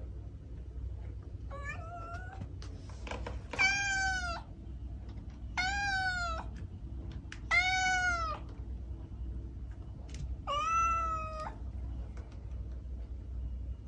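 Kitten meowing: five separate meows about a second each, spaced roughly two seconds apart, the first fainter than the rest.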